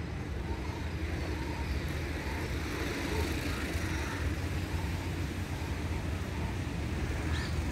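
Steady outdoor background of distant road traffic, a constant low rumble, with a few faint bird chirps over it.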